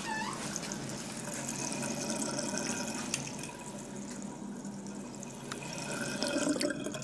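Water tap running steadily into a washbasin; the tap keeps running and won't shut off.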